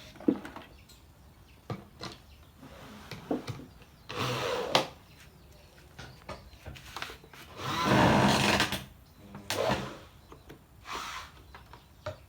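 Workshop handling noises: scattered knocks and clicks of tools and parts, with two short, louder bursts of noise about four and eight seconds in.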